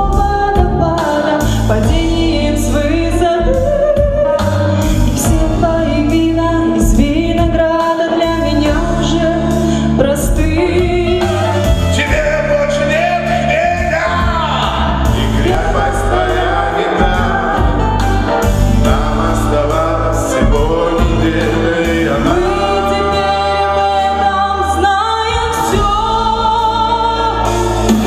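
A man and a woman singing a Russian pop song into microphones over an amplified backing track.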